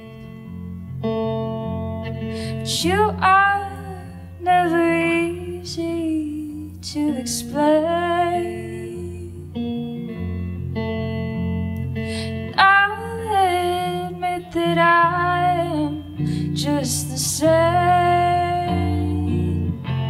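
A woman singing a slow song to her own Telecaster-style electric guitar, which holds steady low chords. The vocal comes in about three seconds in and carries on in separate phrases.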